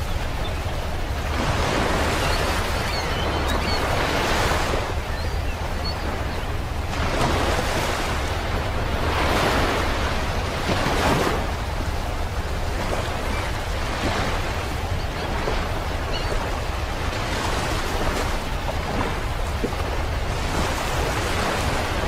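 Ocean surf on a beach: waves breaking and washing in, swelling and falling back every two to three seconds over a steady low rumble.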